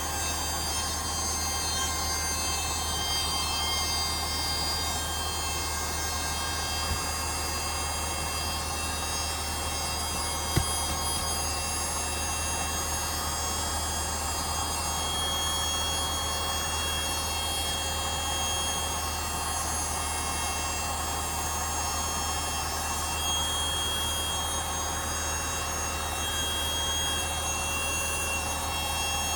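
A steady mechanical drone with a low hum and faint steady high whines, unchanging throughout, broken by two short clicks a few seconds apart near the middle.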